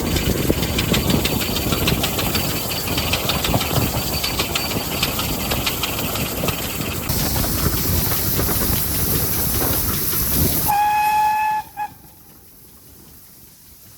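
Steam locomotive under way: a steady rumble and hiss of steam with rapid rattling clicks from the wheels and train, the hiss growing brighter about halfway through. Near the end the steam whistle gives one blast of about a second and a short second toot, after which the sound drops to a much quieter hum.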